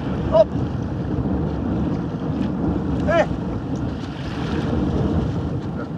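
Wind buffeting the microphone over the rush of waves around a small open boat on a choppy sea, with two brief calls, about half a second in and about three seconds in.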